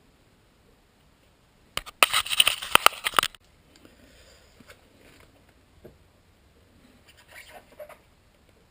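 Scraping and rustling from brushing contact adhesive onto the drysuit's foot joint: a loud scratchy burst about two seconds in lasting about a second and a half, then fainter intermittent scraping.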